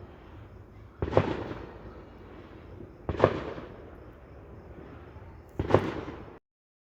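Fireworks going off: three loud bangs about two seconds apart, each trailing off in a rumble. The sound cuts off suddenly near the end.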